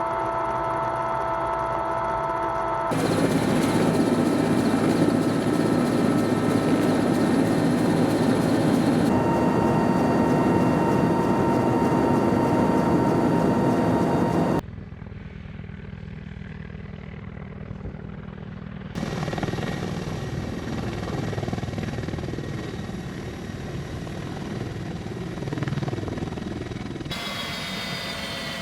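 Military helicopter turbines and rotors running steadily with a high turbine whine, in a string of edited shots that change abruptly in level and tone several times, with a quieter stretch about halfway through.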